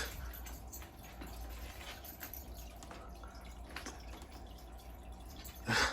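Quiet room tone: a steady low hum with a few faint ticks, and a short sharp noise near the end.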